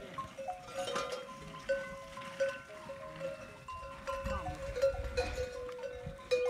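Bells on a herd of camels at a water trough ringing in many short, overlapping tones, with occasional knocks.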